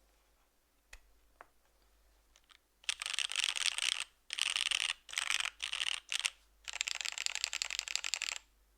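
Typing on a Devotion 65% mechanical keyboard with Cherry HG Black linear switches and DCS keycaps on a full aluminium plate, tadpole-mounted. A couple of single key clicks come in the first three seconds, then fast typing in four runs with short pauses between them.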